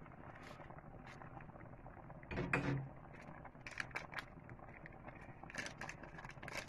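Kitchen handling sounds at the stove: a brief low knock about two and a half seconds in, then scattered light clicks and rustles.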